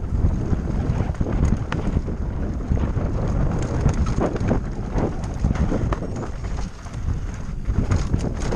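Wind buffeting the action camera's microphone on a mountain bike riding down a rocky dirt singletrack, with tyres rumbling over loose stones and frequent small knocks and rattles from the bike.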